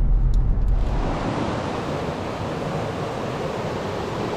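Low car-cabin road rumble for about the first second, then a rocky mountain stream rushing steadily over rocks and a small cascade.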